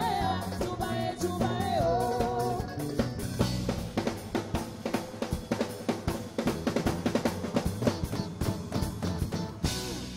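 Live band playing: a woman's sung line over guitars and bass for the first few seconds, then a drum-kit-heavy passage with a fast, busy beat, ending on a final crash near the end that rings away.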